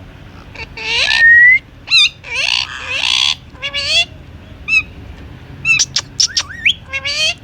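Indian ringneck parrot calling: a run of harsh squawks and screeches mixed with short chirps and a rising whistle.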